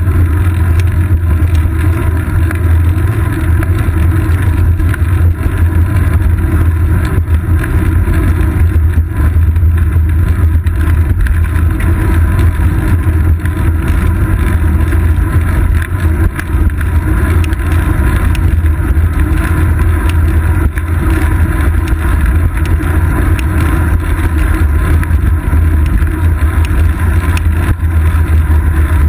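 Steady, loud low rumble of wind buffeting and road vibration on a seat-post-mounted GoPro Hero 2 as the road bike rides along, with no distinct events.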